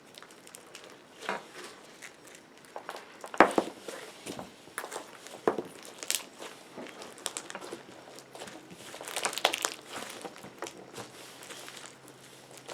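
Hands squishing, stretching and folding a large slime, making irregular crackling, crinkling and popping noises, with one sharp pop about three and a half seconds in.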